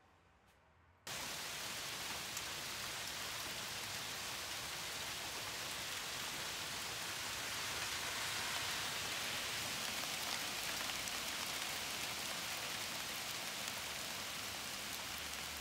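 Small hail falling steadily on leaves and the ground, a dense hiss with scattered ticks, starting suddenly about a second in.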